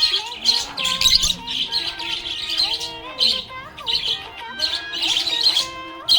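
Budgerigar chirping and warbling in quick bursts of high chirps, with held tones that shift up and down in steps beneath them.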